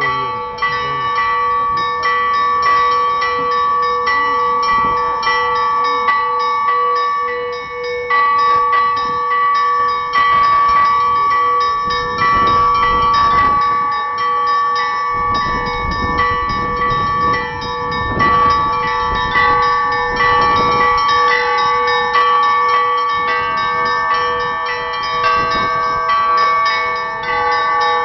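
A set of church bells rung together in a continuous peal: small bells struck in quick succession over steady ringing tones, with heavier strikes of a larger bell about every two seconds through the middle.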